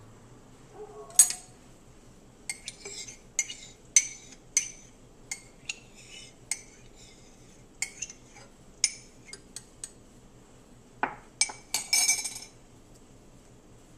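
Kitchenware clinking and tapping against a stainless-steel stand-mixer bowl in irregular runs of quick strikes. One sharp clink about a second in is the loudest, and a denser clatter comes near the end.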